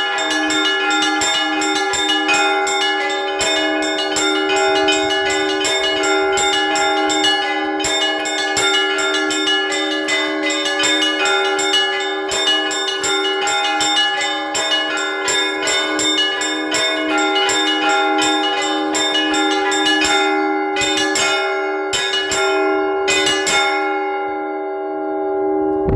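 Russian Orthodox church bells rung in a rapid peal: the small bells are struck many times a second over the steady tones of the larger bells. Near the end the strikes thin out and stop, and the bells are left ringing on as the peal ends.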